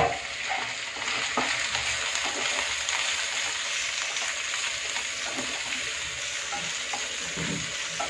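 Chopped cabbage, capsicum and carrot sizzling in hot oil in a non-stick frying pan, a steady hiss, while a wooden spatula stirs them with a few short scrapes and knocks against the pan.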